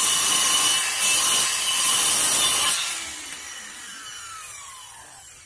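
Maktec circular saw cutting into a timber plank. Partway through it comes out of the wood and the blade spins down with a falling whine that fades away.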